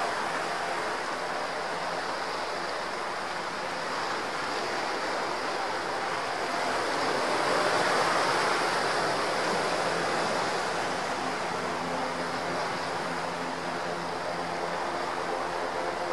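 Coastguard search-and-rescue helicopter hovering low over the sea: a steady rushing noise with a faint low hum, swelling a little about halfway through.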